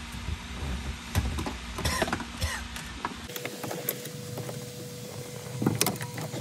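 Irregular clicks and knocks of hands working on a car dashboard. About three seconds in the background low hum drops out, a faint steady tone appears, and a cluster of sharper clicks comes near the end.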